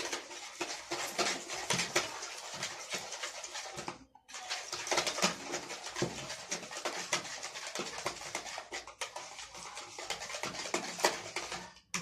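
Small wire hand whisk beating eggs and water in a plastic bowl: rapid clicking and scraping of the wires against the bowl, with a brief pause about four seconds in.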